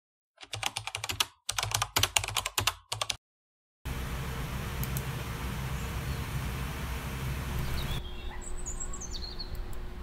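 Fast typing on a computer keyboard, a dense clatter of key clicks in three quick runs that stops after about three seconds, followed by steady background hiss. Near the end a bird chirps, a quick falling call.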